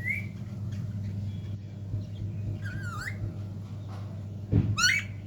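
Pet parrot calling: a short call with sliding pitch about three seconds in, then a louder, harsher squawk near the end, over a steady low hum.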